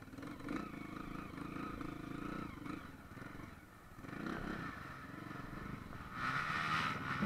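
Dirt bike engine running at low revs, then revving up and getting louder near the end.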